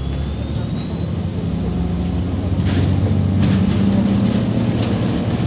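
MAZ 203.065 city bus accelerating, heard from inside the cabin. The engine grows louder and a thin whine rises steadily in pitch, with a few short rattles from the body around the middle.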